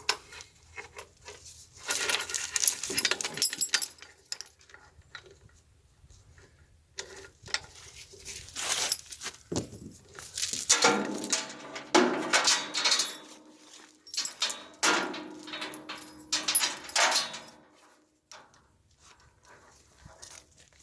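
Clinks, knocks and clatter of metal tools and parts being handled while a backhoe hydraulic cylinder is taken apart, with some ringing metallic tones in the middle.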